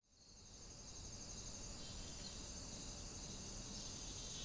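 Faint, steady high-pitched trilling of crickets, fading in over the first half second.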